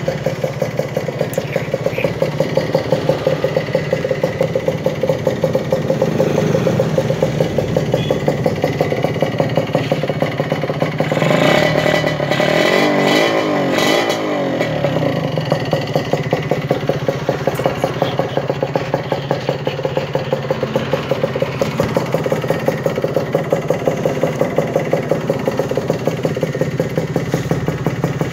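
Kawasaki Ninja 150 RR two-stroke engine running at idle through an aftermarket CLD stainless-steel exhaust, a steady rapid popping beat. About eleven seconds in it revs up briefly and drops back to idle.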